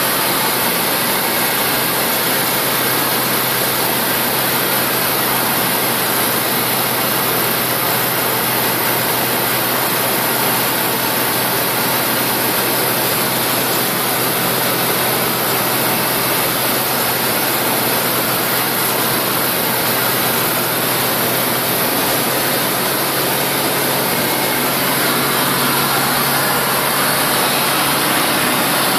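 Tecnam P92 ultralight's piston engine and propeller running steadily in flight, heard inside the cockpit together with the rush of airflow.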